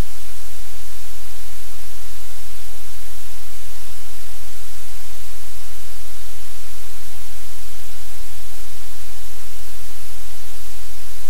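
Loud, steady static hiss over a low electrical hum from the livecam's audio feed, unchanging throughout.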